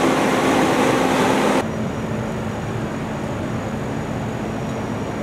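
Steady engine drone of heavy trucks idling, with a low hum; it drops abruptly to a quieter, duller rumble about one and a half seconds in, at an edit.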